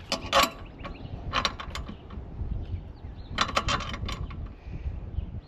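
Metal awning-mounting hardware clicking and rattling in three short bursts: bolts being slid along the van's roof-rail track.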